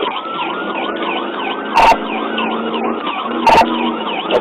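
Police car siren in a fast yelp, rising and falling about four times a second, with a slower tone rising and then falling beneath it. Two short, loud bursts break in about two and three and a half seconds in.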